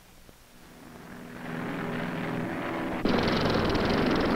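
Propeller aircraft engines droning steadily, fading in and then jumping abruptly louder about three seconds in.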